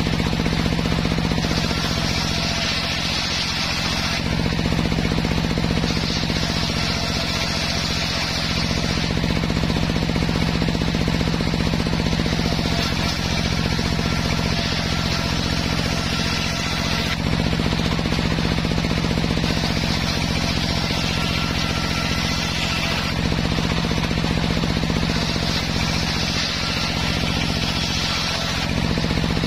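Homemade table circular saw ripping waru (sea hibiscus) wood into battens: a steady drive hum runs under the blade's high rasp. The rasp swells for a few seconds at a time, several times, as each board is pushed through the cut.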